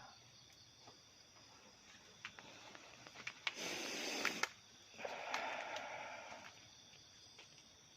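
Rustling and brushing noises from someone pushing through undergrowth, in two stretches of about a second each, with a few light clicks, over a faint steady chorus of crickets.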